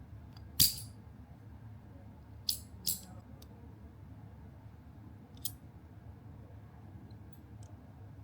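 Metal door latch mechanism clicking as it is pushed by a finger and springs back: a few sharp, separate clicks, the first the loudest, a pair a couple of seconds later, and fainter ones near the end.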